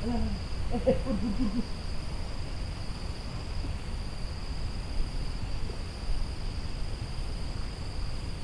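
Steady high-pitched drone of insects in the plantation, one constant tone, over a low rumble of wind on the microphone. In the first second and a half there are a few short, low calls that bend in pitch.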